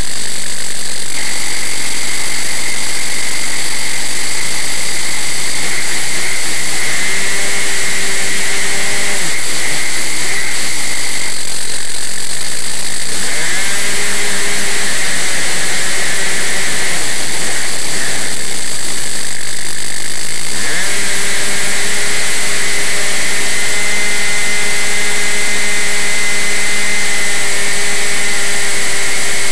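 RC model plane's motor and propeller running right beside the onboard camera, with heavy wind rush. The pitch sags and climbs back several times as the throttle is eased and opened again.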